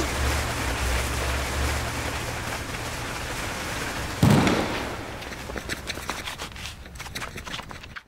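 Film sound effects: a steady rushing noise with a low hum, then a sudden heavy bang about four seconds in, followed by a run of sharp crackling pops that fade away and cut off at the end.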